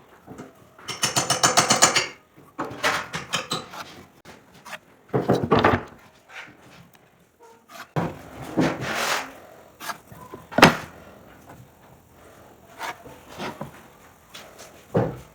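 Tools and wood being handled at a workbench: a quick run of clicks about a second in, then scattered knocks and scraping, with one sharp knock a little past the middle.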